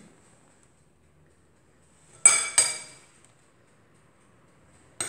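A metal spoon clinking against ceramic dishware: two ringing strikes close together about two seconds in, and one more near the end.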